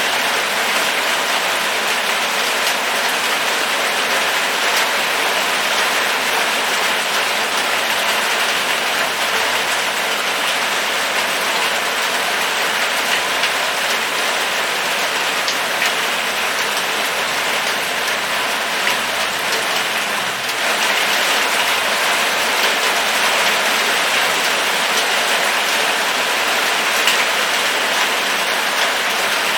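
Steady rain falling: an even hiss with many small drop ticks scattered through it, easing slightly for a moment about two-thirds of the way in.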